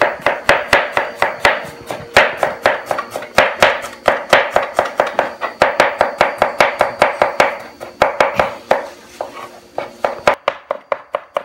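Cleaver chopping and mincing garlic cloves on a cutting board in quick, even strokes, about five a second, with a few short pauses.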